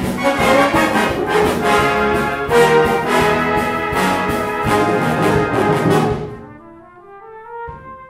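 Full brass band playing loudly, with trombones and cornets prominent. About six seconds in the full band cuts off, leaving a few quieter held notes and one short soft stroke.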